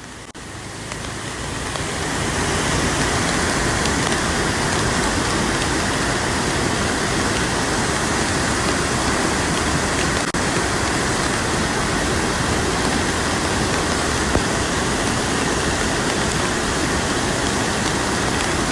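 Steady, even rushing noise that swells in over the first two seconds and then holds level, with one faint tick about ten seconds in.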